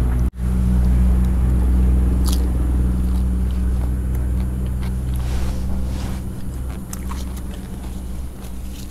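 A person biting and chewing crisp fried spring rolls wrapped in fresh lettuce leaves, with scattered small crackling clicks, over a steady low hum. The sound drops out for an instant about a third of a second in.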